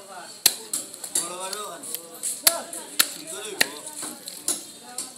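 Long knife scraping the scales off a large carp against a wooden block, in sharp strokes about once or twice a second.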